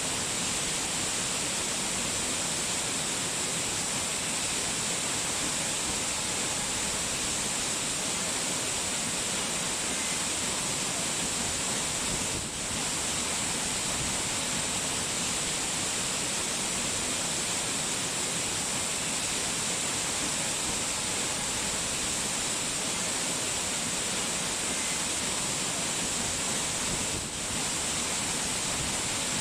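Steady hiss of rushing water, unbroken except for two brief dips in level, about twelve seconds in and near the end.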